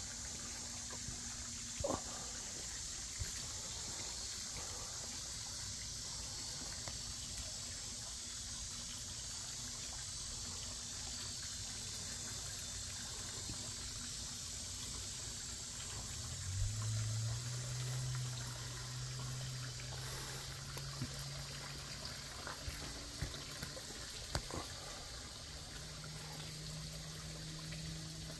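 Steady outdoor background hiss with a few faint clicks. About halfway through, a low motor hum comes in, rising in pitch and then holding, and it returns briefly near the end.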